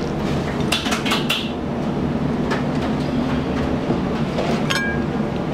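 Steady roar of a Chinese restaurant's wok burner and kitchen extractor, with a few sharp metal clanks of a ladle striking the wok. The clanks come in a quick cluster about a second in, then one more, then a last one near the end that rings briefly.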